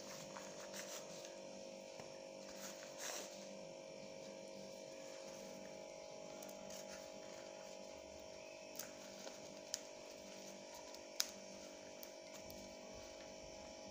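Quiet room tone with a steady electrical hum, broken by a few faint short clicks.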